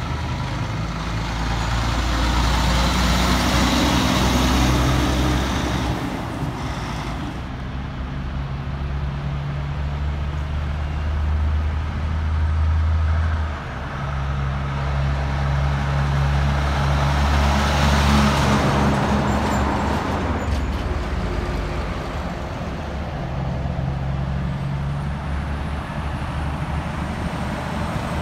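Heavy diesel semi-trailer trucks driving past, their engines running with a deep drone that changes pitch as they shift and swells as each one goes by, loudest a few seconds in and again past the middle.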